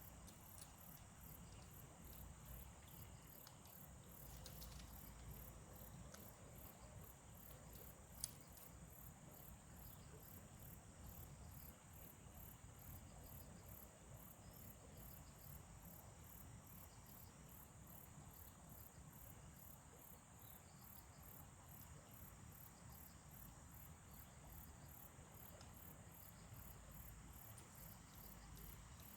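Faint insects chirping in high-pitched pulses about twice a second, over a steady high hum of further insects. There is one sharp click about eight seconds in.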